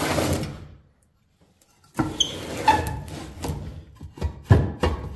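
Steel electric-motor frame scraping and knocking against a workbench as it is rocked and turned by hand to work the stuck stator loose. There is a brief metallic ring about two seconds in and a quick run of knocks near the end.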